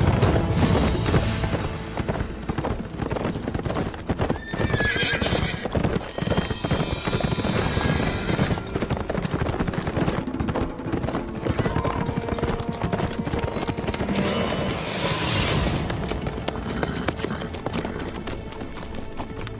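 Horses galloping, with a dense run of hoofbeats, and a horse whinnying about five seconds in, over dramatic background music.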